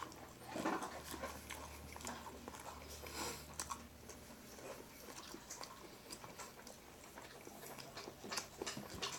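A person chewing a mouthful of a meatless Impossible Burger slider: faint, irregular wet mouth clicks and chewing sounds.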